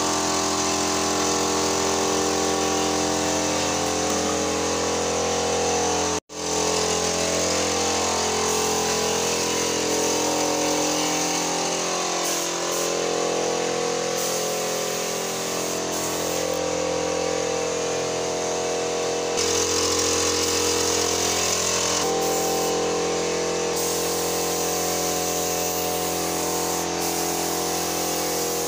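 Small air compressor's motor running steadily while a paint spray gun on its hose hisses, the spray starting and stopping several times as the trigger is worked. The sound drops out for an instant about six seconds in.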